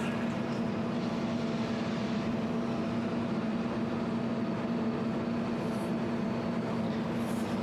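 200W jewelry laser welding machine running with a steady hum, holding one low tone throughout, with two faint brief high hisses near the end.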